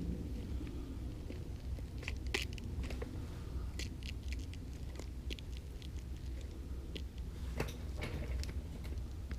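Scattered small clicks and ticks of hands working the brake-bleeding gear, over a steady low hum.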